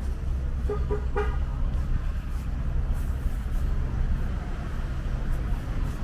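Steady low rumble of city street traffic, with a car horn giving a few quick short toots about a second in.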